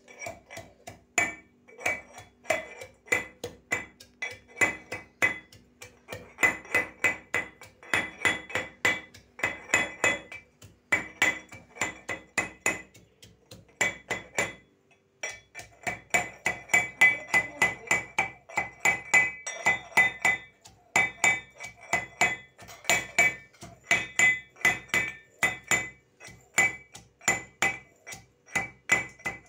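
Metal pestle pounding ginger in a metal mortar (hamamdasta): a steady run of ringing metal-on-metal strikes, about two to three a second, with a short pause about halfway through.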